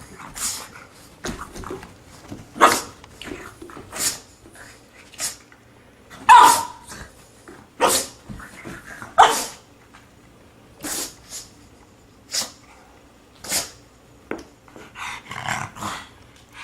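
A pug making a series of short, sharp, noisy sounds, roughly one a second at irregular intervals, with one louder, more voiced yelp about six seconds in.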